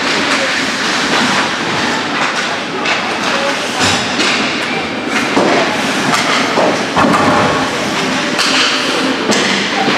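Ice hockey play in an indoor rink: skates scraping the ice and sticks and puck knocking, with sharp thuds against the boards, clearest about 4 and 7 seconds in, over spectators talking.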